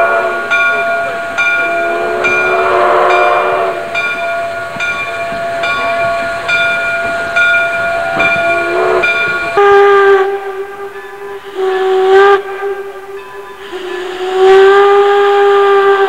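Steam locomotive whistles blowing over steam hiss. For the first ten seconds Canadian Pacific 2317, a 4-6-2 Pacific, holds a long steady chime whistle, with a faint beat about once a second underneath. Then a lower-pitched steam whistle takes over and sounds three long blasts.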